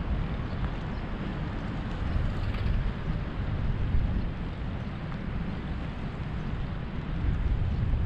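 Wind buffeting a head-mounted action camera's microphone while cycling: a steady low rumbling rush that swells and dips.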